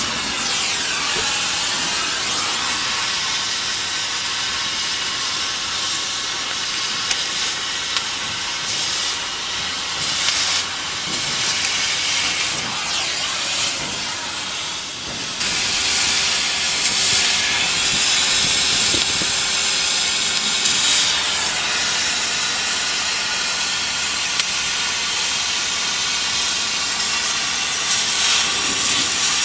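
Oxy-fuel cutting torch hissing steadily as its flame cuts through steel reinforcing bars, becoming louder and brighter about halfway through.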